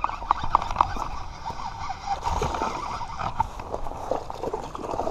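Footsteps on dry grass mixed with the clicking of a baitcasting reel being cranked to bring in a hooked bass; a run of quick clicks in the first second and a half, then scattered ones.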